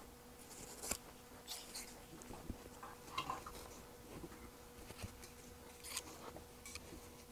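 Faint rustling and a few light clicks from foam padding being trimmed and handled, over a steady low hum.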